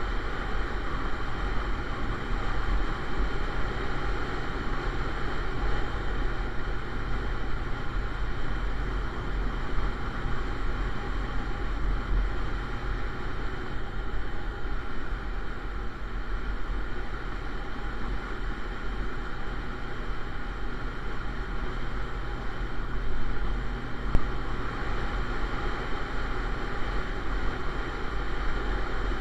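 Motorcycle cruising at a steady speed: continuous wind rush on the bike-mounted camera's microphone over a low engine drone.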